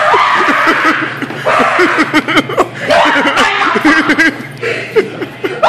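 People laughing in several bursts of rapid, breathy laughter.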